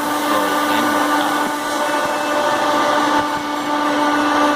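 Newly wired electric radiator fan running steadily: a constant motor hum and whine over the rush of moving air.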